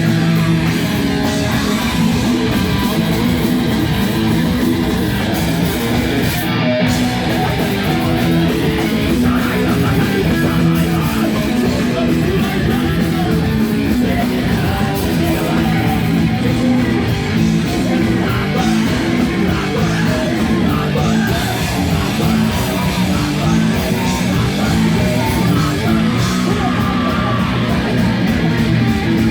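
A live rock band playing loud, guitar-driven music without a break, cutting out for a moment about seven seconds in.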